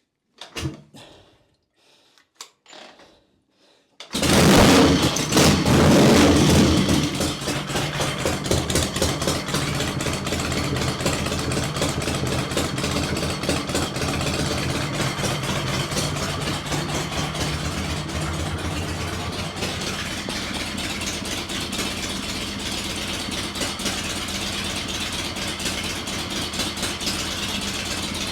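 Kick-started Harley-Davidson Shovelhead stroker V-twin chopper engine with Power Plant exhaust pipes: it catches about four seconds in, revs briefly and loudly, then settles into a steady idle.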